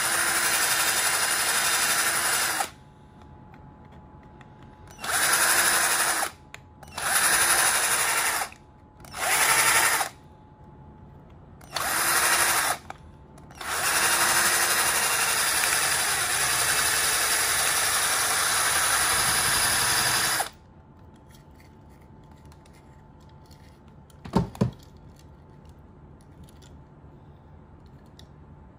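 A 12-volt cordless drill boring out the metal rivet post of a die-cast toy car's base, running in several short bursts and then one long run of about six seconds, its motor winding down after each. About four seconds after it stops, two sharp knocks.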